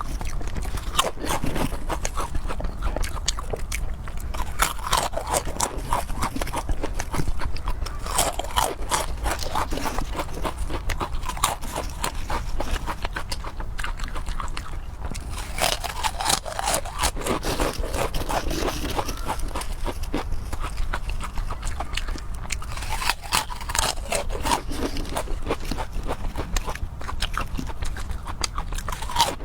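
Close-miked chewing and biting of food, a continuous run of sharp, irregular mouth clicks and crunches.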